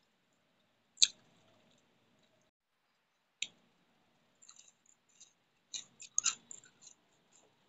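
Sounds of someone eating rice and fish curry with the fingers: a sharp click about a second in and another a couple of seconds later, then a run of soft wet clicks and smacks of chewing.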